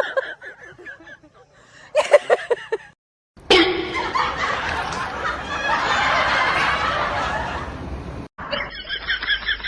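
Bursts of snickering, giggling laughter in quick pulses, broken off twice by abrupt cuts; between them, about five seconds of dense, noisy sound with no clear pitch.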